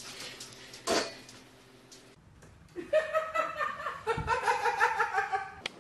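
A short thump about a second in, then a person laughing in quick, high-pitched bursts through the second half.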